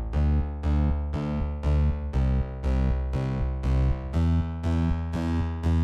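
Background music: short chords struck and left to fade, repeated at an even pulse about three times a second.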